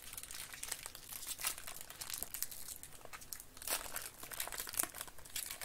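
Foil wrapper of a trading-card pack crinkling as hands work it open, a run of irregular crackles with a few louder crinkles about three and a half seconds in and near the end.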